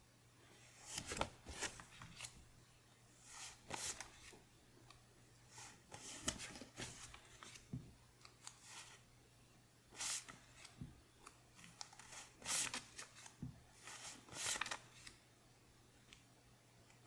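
US one-dollar bills, worn cotton-linen currency paper, rustling and snapping as they are slid one by one off a hand-held stack. The result is short papery swishes every second or two, in irregular clusters.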